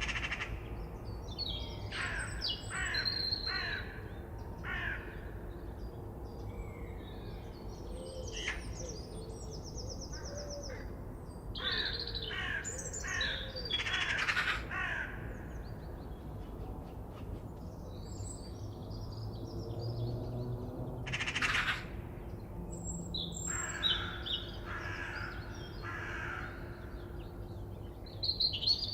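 Forest birds calling: short calls come in series of three to five at a time, a few seconds apart, with fainter high chirps between them. A low steady hum sits under the birds.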